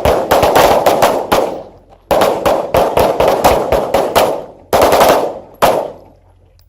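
A line of pistols firing at once: rapid, overlapping shots in ragged volleys, with each shooter putting in two or three rounds. There are brief lulls between the clusters of shots.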